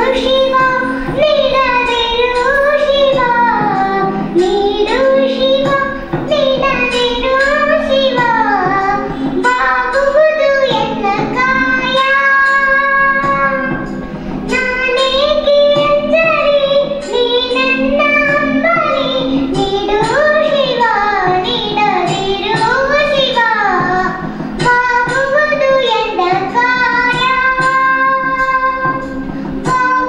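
A young girl singing a melody into a microphone, her pitch gliding and bending through the phrases, over a steady low held tone underneath.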